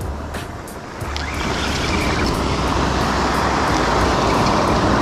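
Surf breaking and washing up a pebble beach, with low wind rumble on the microphone; the rush of water swells from about a second in.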